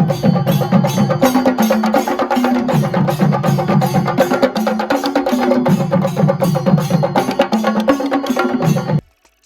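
Chenda melam: Kerala chenda drums beaten in a fast, steady rhythm of about four strokes a second. The playing cuts off abruptly about nine seconds in.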